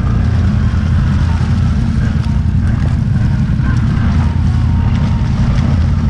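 ATV engine running steadily under load as the quad churns through a deep, flooded mud hole, nose down in the water.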